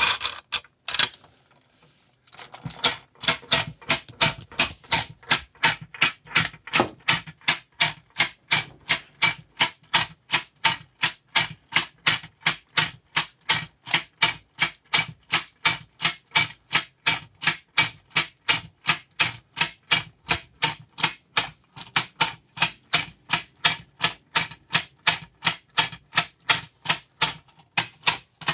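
Clockwork tin clown-in-rocking-chair toy running: a steady, even clatter of tin clicks, about three a second, starting a couple of seconds in and keeping up almost to the end.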